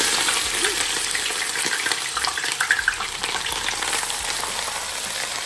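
Onions sizzling in hot oil in a cooking pot, a steady loud frying hiss with a few light clicks. The oil is already hot as they go in.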